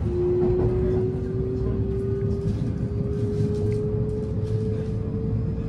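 Cabin sound of a JR West 223-series electric train under way: a steady low running rumble with a single motor whine that rises slowly in pitch as the train picks up speed.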